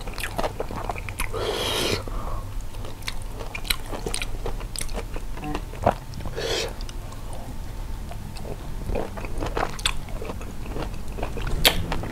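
Close-up biting, crunching and chewing of firm, sour fruit pieces coated in chili salt: many sharp, crisp clicks of teeth through the fruit, with two short breathy hissing sounds, one near the start and one about halfway.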